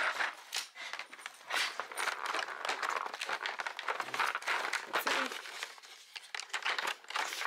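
Cardboard dog-treat advent calendar being pushed and torn open by hand, its perforated door tearing and the thin plastic treat tray inside crinkling in a quick run of crackles.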